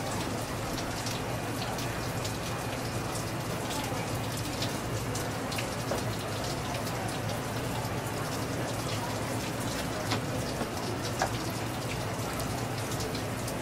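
Tap water running in a thin stream and splashing onto a geoduck and the hands rinsing it, a steady splatter with many small wet ticks.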